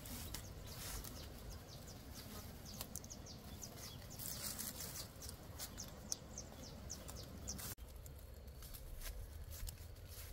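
Faint outdoor ambience: a steady low rumble with many short, high ticks or chirps scattered irregularly throughout.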